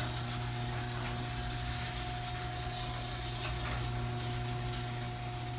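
LiftMaster 1/3 hp chain-drive garage door opener running as it moves the door: a steady motor hum with mechanical chain-and-gear rattle.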